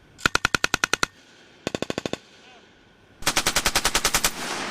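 Machine gun firing three bursts: about nine rapid shots, a shorter burst of about six, then a longer, louder burst, with a rolling echo after it.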